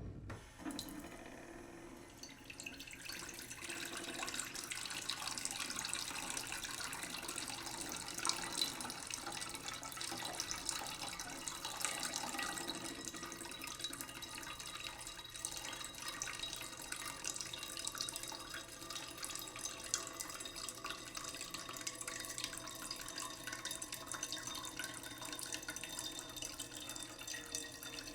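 Water from a tap running slowly into a cooking pot in a sink: a steady trickling stream that builds over the first few seconds and then runs on evenly.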